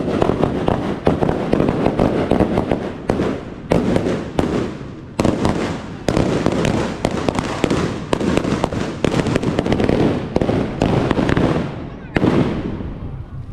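Firecrackers going off in a rapid, irregular volley of sharp bangs, several a second, with a couple of brief lulls.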